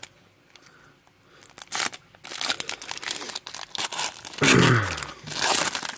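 Foil trading-card pack wrapper being torn open and crinkled by hand, starting about two seconds in. About four and a half seconds in there is a louder burst of crinkling together with a short, low, falling voice sound.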